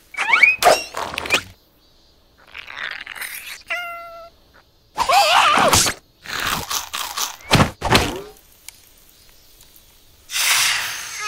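Cartoon creature voices and slapstick sound effects: several short bursts of squeaky, sliding-pitch squeals and gibberish, a brief pitched tone just before four seconds in, and a couple of sharp thuds around eight seconds in.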